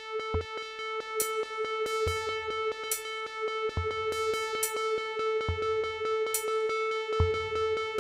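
Electronic music from a laptop ensemble: a steady held synth tone under rapid, even clicks about five a second, with a low bass thump and a bright hissy hit alternating roughly every second and a half.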